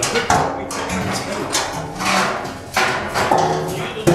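Several people talking at once, with a couple of sharp knocks, one just after the start and one at the end, as the curved metal panels of a biogas digester mold are handled.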